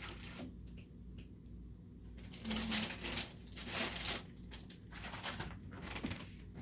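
Rummaging through objects on a work table: rustling, clattering and small knocks as things are moved and picked up, loudest in the middle, then a few lighter clicks.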